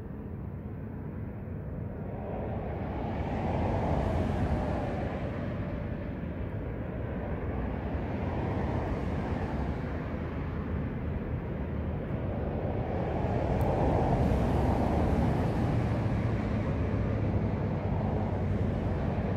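Road traffic noise: vehicles going by, their tyre and engine noise swelling and fading, loudest about four seconds in and again around fourteen seconds in.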